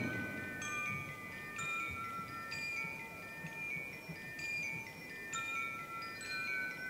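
Soft, slow melody of struck tuned bells, about one note a second, each note ringing on and overlapping the next.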